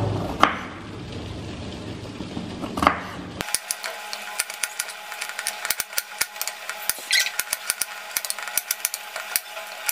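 Kitchen knife cutting cauliflower florets on a wooden cutting board. A few separate knocks of the blade on the board come first; from about three and a half seconds in, a quick, irregular run of light taps follows.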